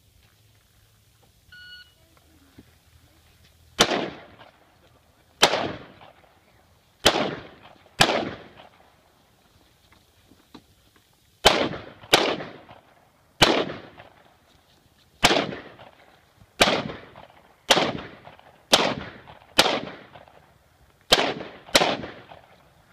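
A short electronic shot-timer beep, then a course of fire: about fifteen single gunshots from a handgun and an AR-style rifle, each with a short echo, spaced from half a second to a few seconds apart, with a gap of about three seconds near the middle.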